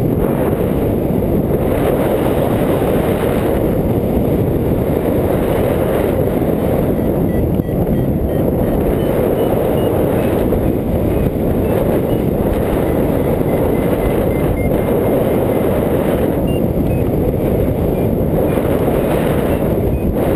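Steady, loud wind rush over the microphone of a camera carried on a hang glider in flight.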